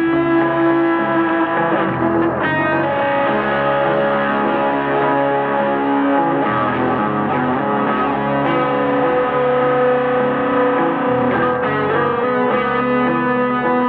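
Electric guitar through distortion and effects playing dense, long-held notes that blend into a wall of sound, the chord changing about two seconds in and again near the end.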